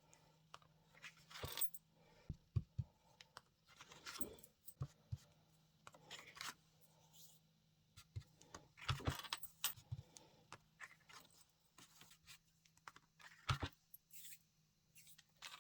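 Faint, scattered taps, clicks and rustles of stamps being inked on ink pads and pressed onto cardstock, with a low steady hum underneath.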